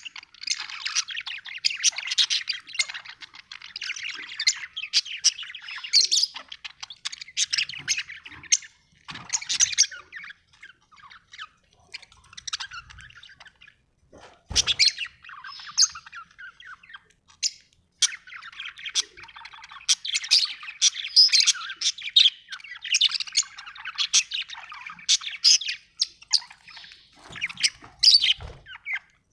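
Budgerigar chirping and warbling in quick, dense runs of high chirps, thinning out in the middle and picking up again later. One sharp knock about halfway through.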